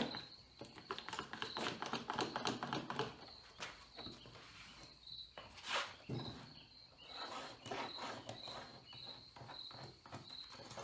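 A cricket chirping steadily at one high pitch, about two chirps a second, over the knocks and scraping of a plastic seat base being shifted and lined up on a sheet of plywood.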